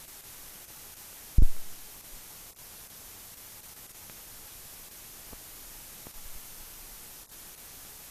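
Steady hiss of a mute newsreel film transfer with no recorded soundtrack. A single loud, low thump comes about a second and a half in, and two faint pops follow later.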